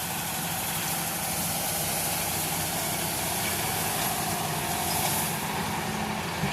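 Farm tractor engine running steadily while it pulls an implement spreading out cut grass to dry, a continuous even hum with no change in pitch.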